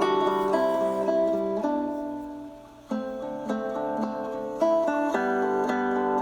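Background music: a plucked acoustic guitar playing a melody of bright notes, fading back briefly about three seconds in before picking up again.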